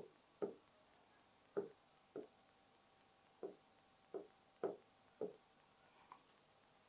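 A pen tapping and drawing on an interactive whiteboard's screen: about nine short, soft knocks at irregular intervals as lines and numbers are written.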